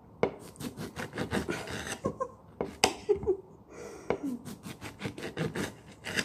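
Serrated knife sawing back and forth through a lemon on a cutting board, a quick, uneven run of short rasping strokes as it is cut into slices.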